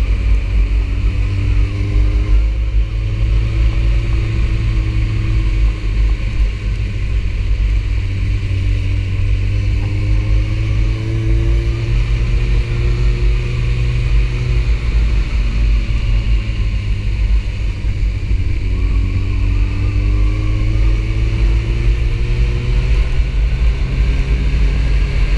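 Sport motorcycle engine running under way, its pitch rising slowly three times as it accelerates, under heavy wind rumble on the microphone.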